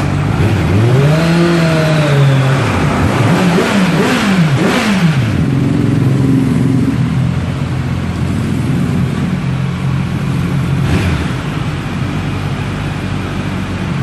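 Kawasaki Z900's inline-four engine through an SC Project S1 slip-on exhaust, revved from idle: one long rev about a second in, a quick run of short throttle blips, then back to a steady idle with a small blip near the end. The stock header and catalytic converter are still fitted, which the owner says holds the exhaust sound back.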